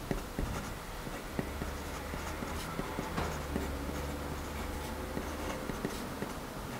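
Pen writing on grid paper: faint scratching strokes and light ticks as an equation is written out by hand.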